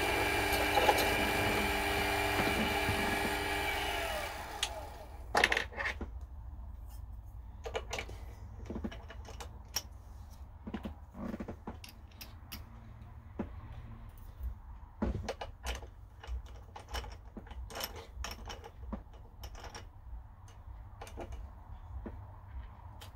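Mini mill spindle motor running steadily with a whine, switched off about four seconds in and spinning down. Scattered metallic clicks and clinks follow as the drill bit is changed and a twist drill is fitted in the drill chuck.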